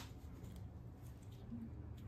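Faint small clicks and scrapes as a destroyed connecting-rod bearing shell is handled in the fingers, over a low steady hum.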